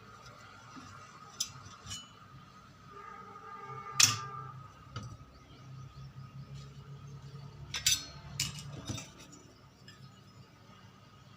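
Metal parts of an electric iron clinking and knocking as it is taken apart by hand. There are a few sharp clicks, the loudest about four seconds in and two more just before the eight-and-a-half-second mark, over a faint low hum in the middle.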